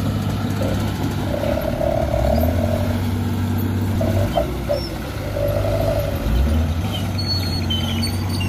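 Isuzu Elf dump truck's diesel engine running steadily, its note shifting a couple of times.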